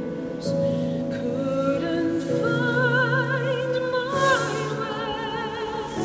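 A woman singing a slow song, with wide vibrato on long held high notes, over a sustained low accompaniment.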